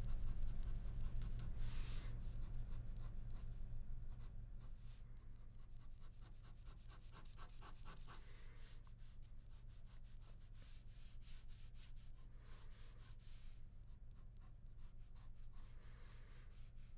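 Ballpoint pen hatching on drawing paper: quick, repeated scratchy strokes, about five a second at their densest, faint over a low steady hum.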